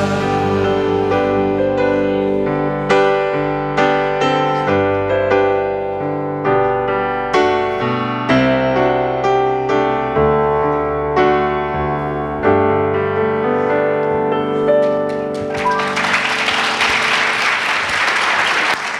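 Piano playing the instrumental close of a worship song, chords struck every second or so and dying away. Near the end the congregation breaks into applause.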